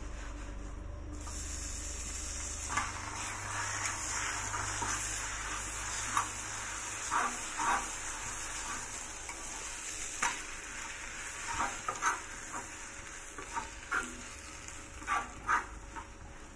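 Roti frying in melted fat on a hot tawa griddle: a steady sizzle that starts suddenly about a second in, with repeated short clicks and scrapes of metal tongs against the pan as the roti is pressed and turned.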